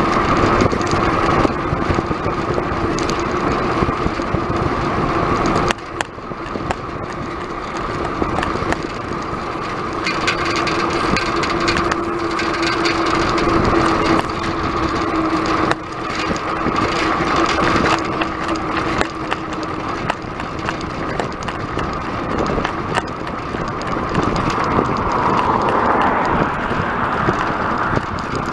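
Road bike riding on tarmac: a steady rush of wind and tyre noise with a steady hum through it, picked up by a camera mounted on the bike. The level drops suddenly twice.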